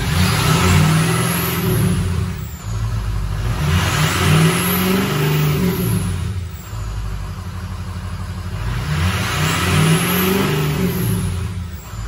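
Ford 6.0 Powerstroke V8 turbo-diesel running with its faulty ICP sensor unplugged, revved up three times and let fall back between. No starter grind is heard: the random starter engagement does not show up.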